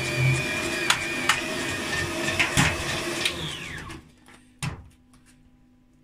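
Kenwood Chef stand mixer running its mincer attachment, a steady motor hum with a few knocks, as onion and bread are fed through to push the last meat out of the mincer. About three seconds in the motor is switched off and winds down with a falling whine, followed by a couple of faint clicks.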